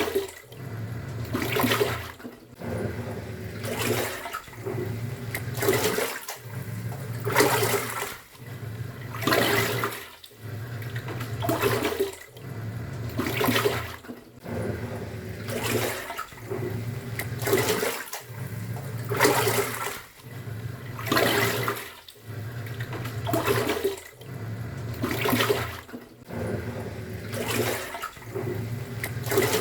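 Top-loading washing machine agitating a load: the pulsator motor hums and the water swishes in a surge about every two seconds, with a short break each time the motor reverses.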